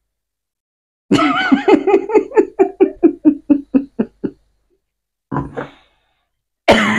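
A person laughing: a rapid run of about a dozen 'ha-ha' pulses over about three seconds. Near the end comes a short, loud vocal burst.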